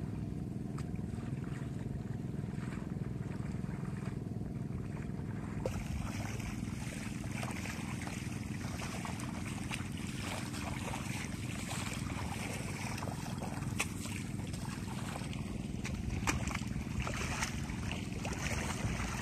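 Wooden landak push weeders being shoved through a flooded rice paddy, the water and mud swishing and splashing as weeds are churned under and the soil loosened. The swishing becomes closer and clearer about six seconds in, over a steady low rumble.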